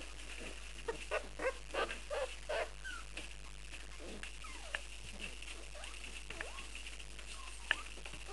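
Young Dogue de Bordeaux puppies squeaking and whining at their food tray: a quick run of about six short squeaky yips about a second in, then scattered small whines that slide down in pitch, and a sharp click near the end.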